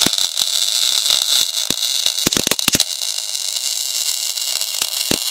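MAG welding arc of a welder-based metal 3D printer laying down a steel bead: a steady crackling hiss with sharp spatter pops scattered through it, most of them in the first three seconds.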